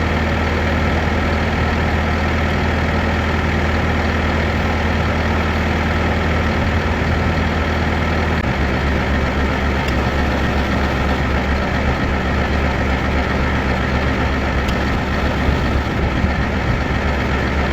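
A heavy engine running steadily, with its low drone shifting slightly about halfway through.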